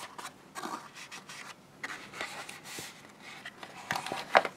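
Stiff white card being pressed and rubbed by hand: scattered short rubbing and scraping of paper against paper, with one sharper click near the end.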